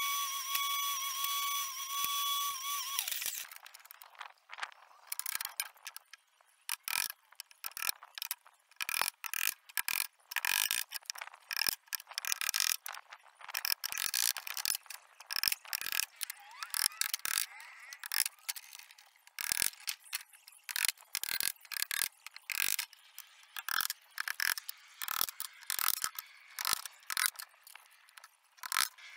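Table saw running with a steady high whine, which cuts off about three seconds in. Then a hammer drives nails into pallet wood: many sharp strikes in quick, irregular runs.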